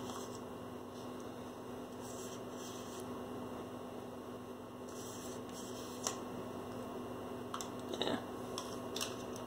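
Steady electrical mains hum, with a few faint taps in the second half as a paintbrush works in a plastic cup of paint.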